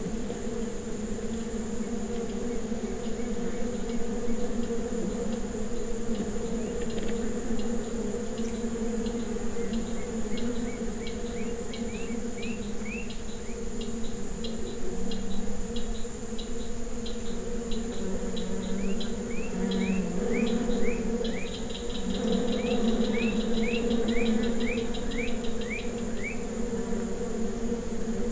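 Steady insect buzzing with a constant high, thin insect whine over it. From about ten seconds in, a small bird gives several series of short rising chirps.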